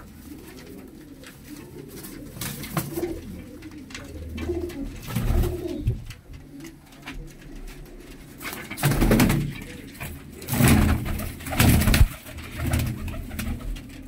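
Domestic pigeons cooing in a small loft, low wavering coos overlapping throughout. A few louder rustling sounds come in the second half.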